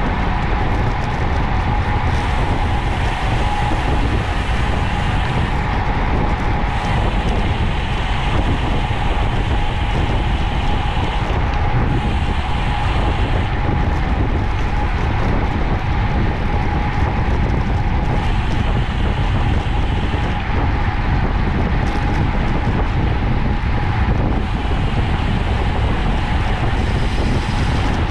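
Steady wind rush on the microphone of a road bike riding at about 44 km/h, mixed with tyre and road noise, with a steady high hum running under it.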